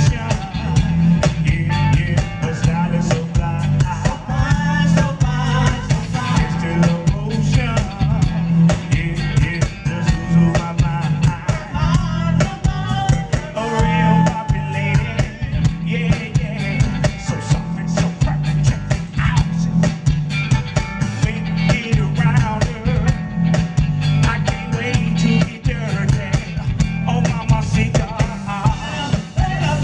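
A live funk band playing: drums, electric bass and guitar, and keyboards lock into a steady bass-and-drum groove, with a man and a woman singing lead over it.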